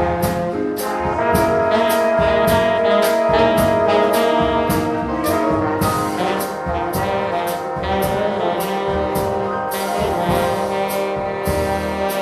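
A live big band playing swing, its brass section of trombones and trumpets holding chords over a steady cymbal beat of about two strokes a second.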